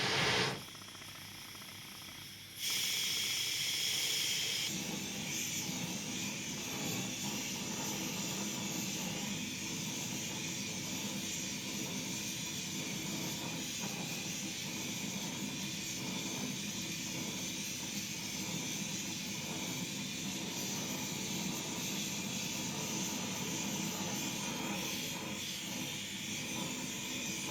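Gas torch heating the tractor's cast-iron engine block: after a short hiss at the start, the torch comes on suddenly about two and a half seconds in and burns with a steady, even hiss.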